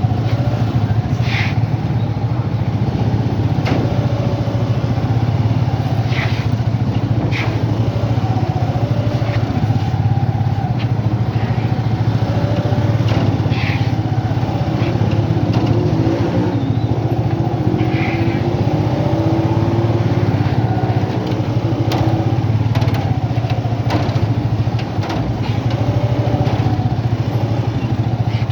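Motorcycle engines running and passing in slow traffic, a steady low engine hum with pitches that rise and fall as bikes move.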